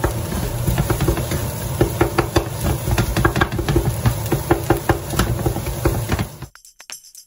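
Wooden spatula knocking and scraping against a frying pan in quick, irregular clacks as shredded roti and vegetables are stir-fried, over a frying hiss. It stops abruptly near the end.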